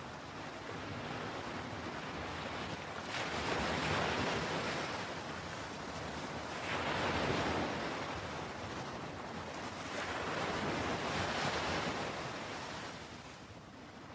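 Ocean surf: waves washing in and drawing back, the rush of water swelling three times and then easing off.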